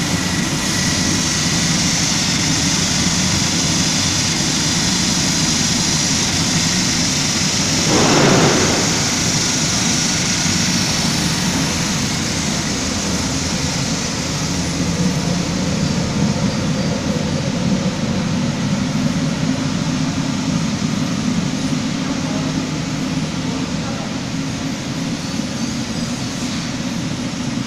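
Bandknife foam splitting machine with a vacuum conveyor belt running: a steady low mechanical hum with a high hiss that fades out after about twelve seconds. About eight seconds in there is one brief, louder rush of noise.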